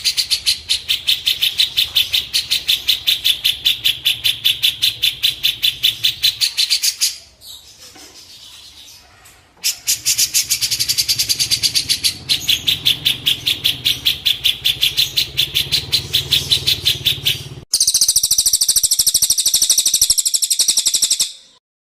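Songbird 'masteran' track: one bird's chirp repeated rapidly and very evenly, several times a second, with a low hum beneath it. The chirping breaks off for a few seconds partway through and resumes, then near the end gives way to a higher-pitched, faster series that stops abruptly.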